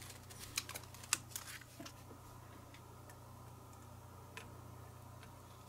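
Faint small clicks and taps from hands handling a small circuit board and soldering tools on a workbench, several in the first two seconds and one more a little after four seconds, over a low steady hum.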